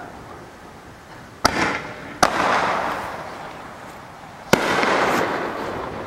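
Aerial fireworks bursting: three sharp bangs, about a second and a half in, just after two seconds, and about four and a half seconds in, each trailing off in a crackling hiss over a second or two.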